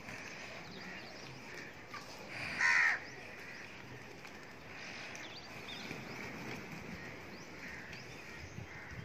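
Crows cawing as a flock gathers to feed: one loud caw about two and a half seconds in, with fainter caws scattered through the rest.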